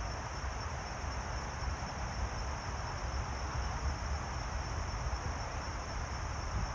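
Outdoor ambience: an even hiss with a thin, steady high-pitched drone, and wind rumbling on the microphone.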